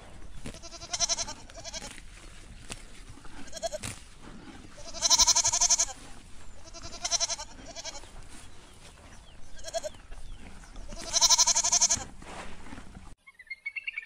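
Goats bleating in a series of calls, each with a wavering, quavering pitch. The two loudest bleats come about five and eleven seconds in, and the sound stops abruptly near the end.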